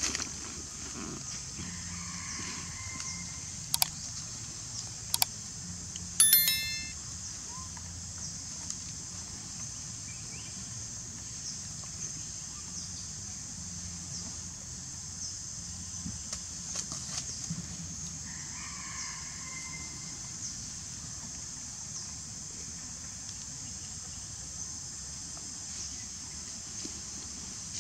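Outdoor ambience with a steady high-pitched insect drone, broken by a few sharp clicks and one short chirping call about six seconds in, with faint calls now and then.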